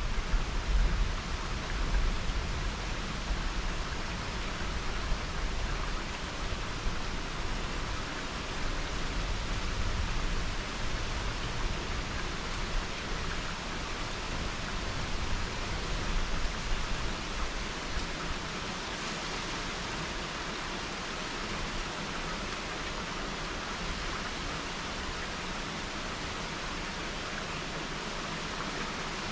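Steady hiss of heavy thunderstorm rain. Gusts of wind buffet the microphone with low rumbles for the first two-thirds, then ease off, leaving an even rain hiss.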